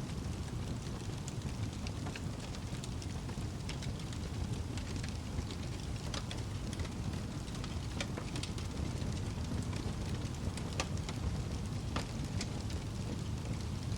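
Wood fire crackling in a fireplace: steady low rumble of the flames with scattered sharp pops and snaps, several a second.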